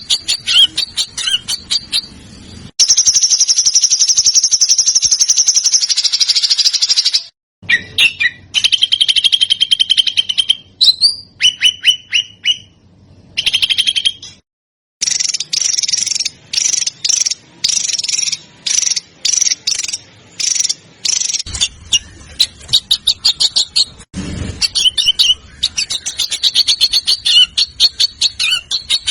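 Recorded songs of small songbirds: fast, dense high-pitched trills and chattering runs of repeated notes. The clips are cut together, with two brief silent breaks between them.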